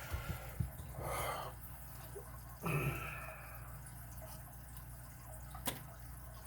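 Quiet handling noises from a Lishi lock-pick tool being searched for among lockpicking gear: a short rustle about a second in, a few faint knocks, and one sharp click near the end, over a low steady hum.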